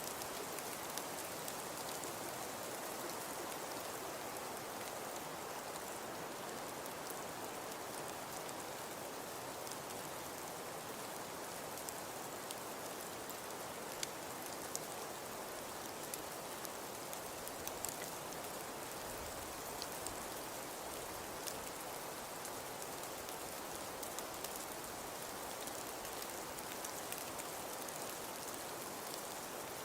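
Steady, even hiss of falling precipitation, with scattered small ticks of it striking a surface.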